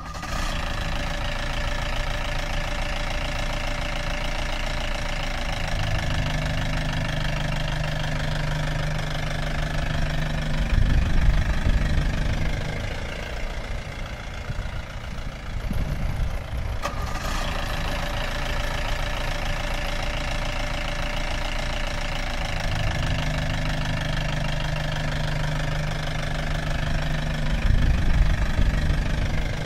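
A vehicle engine running steadily at idle, with two louder surges about 17 seconds apart, near the middle and near the end.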